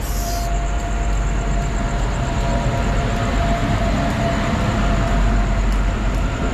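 The Teesta Torsa Express passenger train running past on the next track: a steady rumble of wheels on rails, a little louder about five seconds in.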